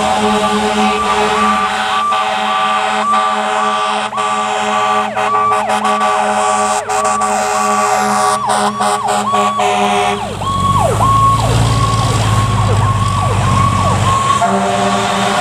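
Vintage GE Powercall siren on a 2006 Seagrave fire engine, sounding a fast yelp that sweeps up and down about twice a second. About ten seconds in, as the truck passes close, the sweeps change and a heavy engine rumble rises for a few seconds.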